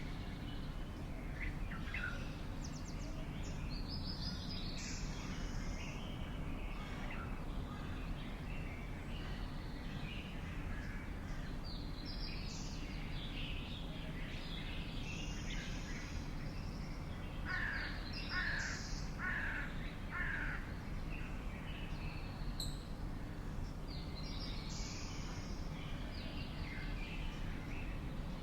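Several birds calling and chirping, with many short high chirps throughout and a run of four loud, evenly spaced calls about two-thirds of the way through, over a steady low background rumble.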